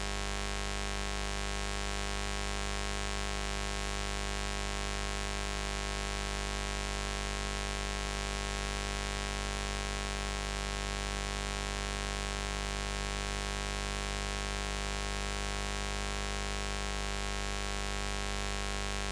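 Continuous buzz sound effect: a low hum with a dense stack of overtones reaching very high, holding perfectly steady in pitch and loudness.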